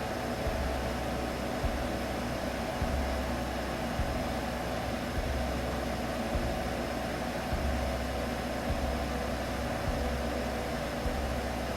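Baby sleep-aid sound: a steady droning hum over an even bed of noise, with a soft low throb repeating about once a second.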